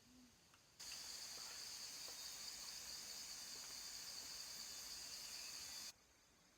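Cicadas buzzing in a steady, high-pitched chorus that starts about a second in and cuts off abruptly near the end.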